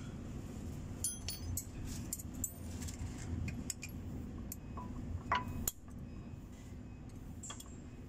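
Light metallic clinks and jingles of steel brake-pad spring clips and new pads being handled and seated in a truck's disc brake caliper, with a louder clack about five and a half seconds in, over a steady low hum.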